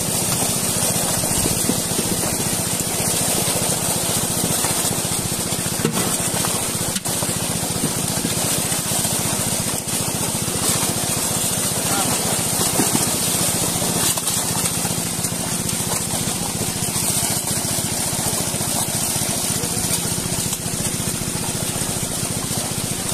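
Dense, continuous splashing of many fish thrashing in the shallow water of a drawn-in seine net. A steady low motor hum runs underneath.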